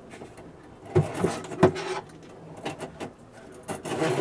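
Pull-out spray head of a chrome mixer tap and its metal hose knocking and clicking as the head is handled and pushed back into the spout: a few sharp knocks with a short rattling stretch, then more knocks and rustling near the end as it docks.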